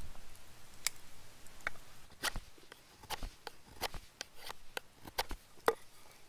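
Knife blade whittling a split stick of wood: a dozen or so short, sharp shaving strokes at an uneven pace.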